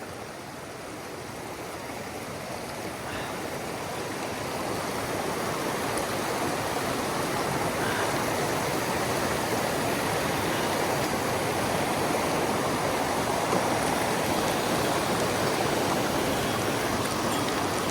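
Mountain stream water rushing steadily, growing louder over the first several seconds and then holding even.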